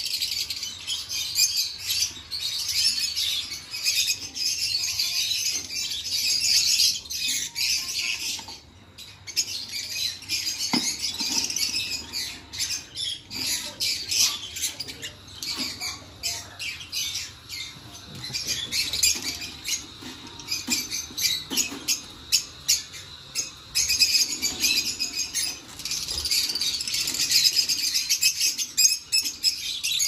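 Many caged Fischer's lovebirds chattering and squawking together in a dense, continuous high-pitched chatter.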